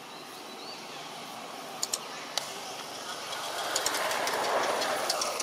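Outdoor background with a passing vehicle's engine noise that grows louder in the second half and peaks near the end, with a few sharp high clicks scattered through it.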